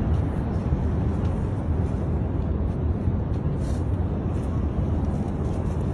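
Outdoor city ambience: a steady low rumble that wavers unevenly in level, with a thin hiss above it.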